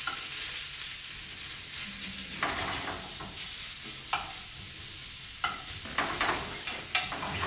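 Chopped bacon, onion and garlic sizzling steadily in a frying pan, cooking in the bacon's own rendering fat with no oil added. A utensil stirs through them, with scrapes and a few sharp clicks against the pan, the loudest near the end.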